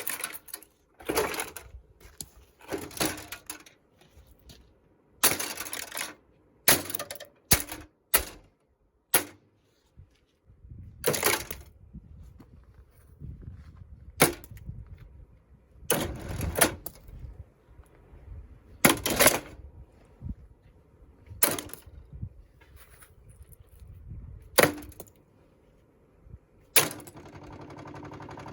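Irregular knocks, cracks and clattering, about one every second or two, as a ventilation fan is broken apart. Near the end a steady noise starts and grows.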